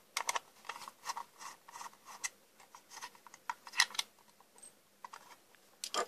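Small screwdriver turning out the screws of a Legrand manual fire alarm call point's plastic housing: scattered light clicks, ticks and plastic scrapes as the screwdriver works and the case is handled, with a sharper click near the end as the case comes apart.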